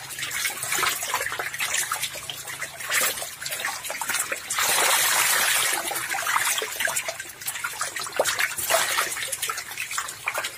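A dense crowd of climbing perch thrashing in shallow water: constant splashing and sloshing full of sharp little splashes, with a steadier rush of water about halfway through.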